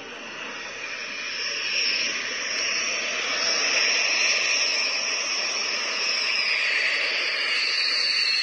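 Dassault Rafale fighter's twin jet engines on a low landing approach: a high whine over a steady jet rush, growing louder over the first couple of seconds as the jet nears. Near the end the whine begins to drop in pitch as it draws level.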